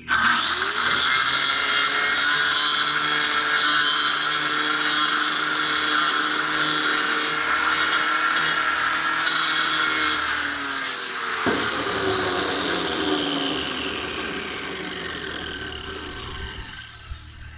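Small diamond-blade saw starting abruptly and running at full speed, grinding travertine edges with a gritty, hissing whine. About ten seconds in it is switched off, and the blade winds down with its pitch falling slowly.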